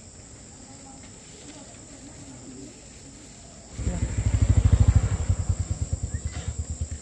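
Faint steady insect chirring, then about four seconds in a small engine starts suddenly and runs with a fast, even low pulse.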